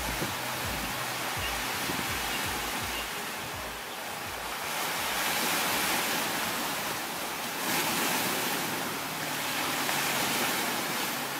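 Ocean surf washing onto the beach in a steady rush that swells and eases as the waves come in.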